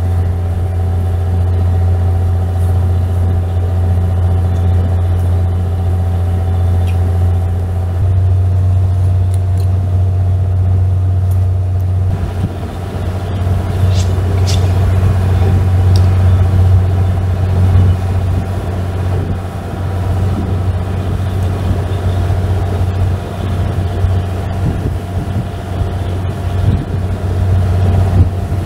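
Fishing boat's engine idling with a steady low drone, and a few light knocks from work on the cutting board about halfway through.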